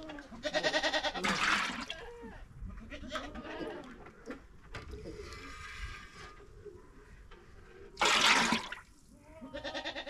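Goats bleating in short wavering calls, about half a second in and again near the end. Between them come loud rushing splashes, the loudest just after eight seconds, as ladlefuls of melted butter oil are poured into an aluminium milk can.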